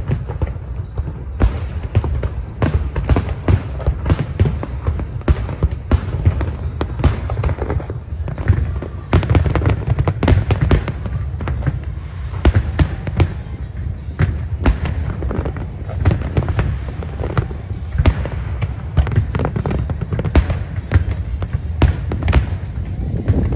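Large aerial fireworks display: shells bursting in quick, irregular succession, many sharp bangs over a continuous low rumble.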